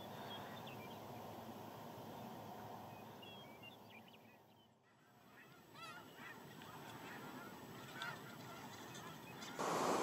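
A large flock of white geese calling: a dense din of many overlapping honks, with single clearer honks standing out in the second half. Just before the end it cuts to the rush of a stream.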